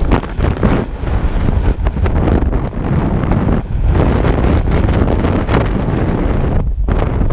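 Loud wind noise buffeting a helmet camera's microphone during parachute flight under canopy, rising and falling in gusts, with a brief lull near the end.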